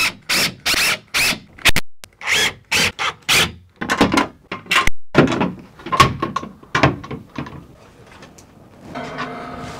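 Hand-tool work on a shelving system being mounted: a quick run of scraping strokes, about two or three a second, then several separate knocks, and a ringing with a few steady tones near the end.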